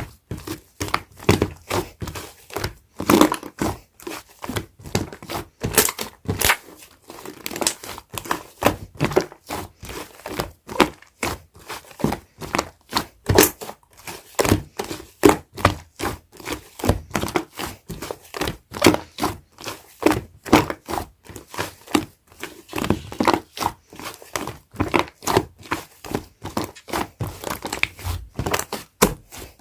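Yellow clay-mixed slime being squished, poked and stretched by hand, giving a dense run of sticky pops and crackles, several a second.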